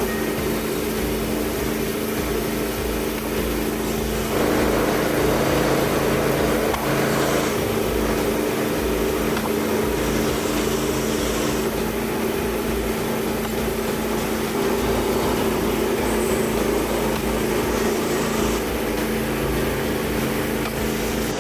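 Small gas engine of a Frontier OS27 portable bandsaw sawmill running steadily under load while milling a log.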